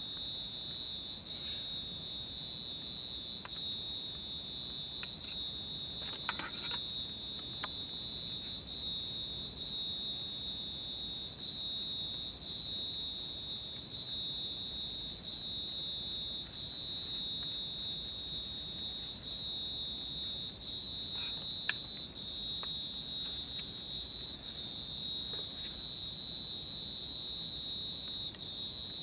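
Steady insect chorus, a continuous high-pitched trill with faster chirping above it. A few faint clicks and knocks sound over it, one sharper click about 22 seconds in.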